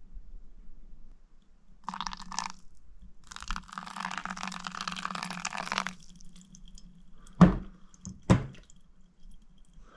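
Hot water poured from a kettle onto ground coffee in a paper filter cone, splashing in a short pour about two seconds in and a longer one of about three seconds that stops around six seconds in. Two sharp knocks follow near the end, over a low steady hum.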